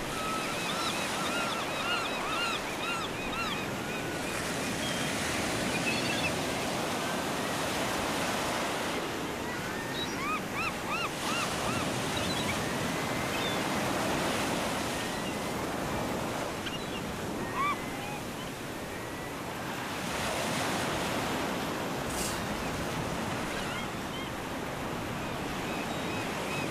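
Ocean surf washing onto a beach, a steady rushing wash with slow swells in level, and runs of short high chirps over it, mostly in the first few seconds and again around ten seconds in.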